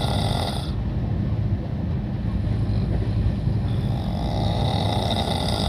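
A man snoring loudly in a sleeper train coach, over the steady rumble of the running train. The snoring swells near the start and again about two-thirds of the way through.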